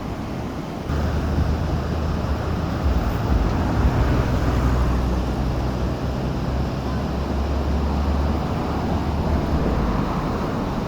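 Rushing water of a small fast-flowing river, a steady noise. Wind buffets the microphone as a low rumble from about a second in until near the end.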